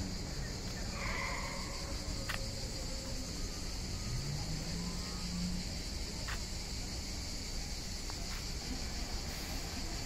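A steady, high-pitched chorus of insects shrilling without a break, with a few faint clicks over it.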